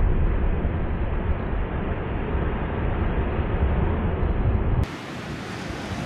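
Ocean surf breaking and washing over a rock platform, with wind buffeting the microphone and adding a heavy low rumble. About five seconds in, the sound drops abruptly to a quieter, clearer wash of surf with little rumble.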